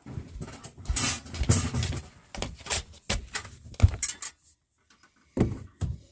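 Clatter of metal heater parts and tools being handled: a run of quick knocks and rattles, a short pause, then one more brief clatter about five and a half seconds in.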